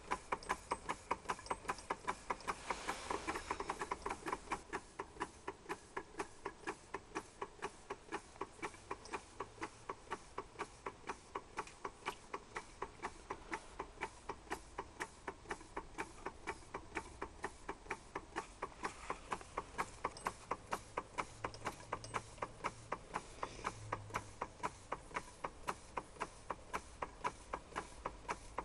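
A small 1902 Bing live-steam engine running steadily, making a quick, even ticking with each turn of its flywheel as it drives its boiler-feed water pump.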